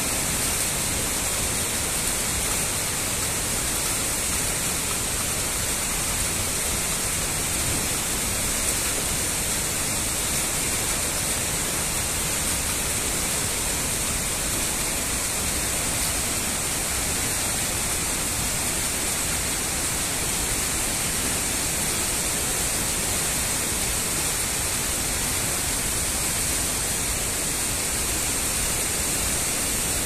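A waterfall and river in flood, muddy water rushing in a loud, steady noise that does not let up.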